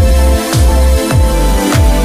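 Background music with a steady beat: a deep bass hit that drops in pitch comes a little under twice a second, under held synth tones.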